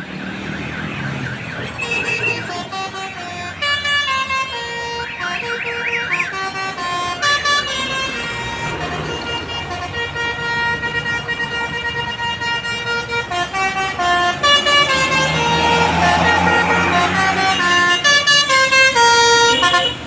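A bus's musical horn (klakson basuri) playing a tune as a run of held notes stepping up and down in pitch, with a warbling, siren-like tone near the start and again about five seconds in.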